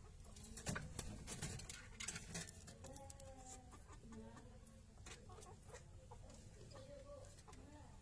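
A caged waterhen-type rail giving soft, short clucking calls, with scattered clicks and rustles from its movements in the cage.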